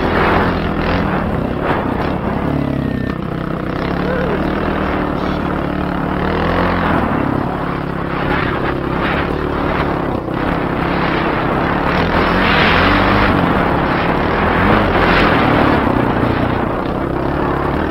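Kawasaki KLX300R dirt bike's single-cylinder four-stroke engine running under load while riding a dirt trail, the revs rising and falling as the throttle is worked, with wind noise on the microphone.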